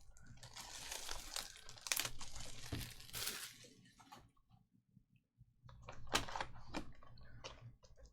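Trading-card packs and cards being handled: crinkling and tearing of pack wrappers with sharp clicks of card handling, in two spells of rustling with a quiet gap of about a second and a half between them.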